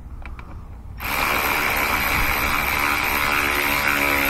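A couple of light clicks, then about a second in a Milwaukee cordless electric ratchet starts running steadily, its motor whining as it drives a throttle body mounting bolt down.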